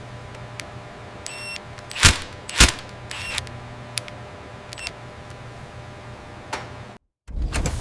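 Two loud sharp clicks and a few lighter ticks over a steady low machine hum, with two short electronic beeps, one before and one after the clicks. The sound cuts out briefly near the end.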